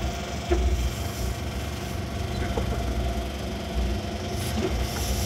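A sportfishing boat's engines running at low speed: a steady low rumble with a faint hum above it.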